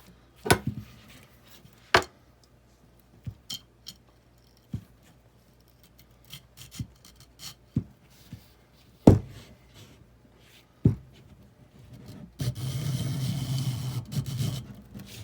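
Scattered knocks and clicks of the steel tube and tools being handled, then, near the end, a wire brush scraping steadily for a couple of seconds as it is pulled through the pressure washer's steel tube, rasping loose scale rust off the inner wall.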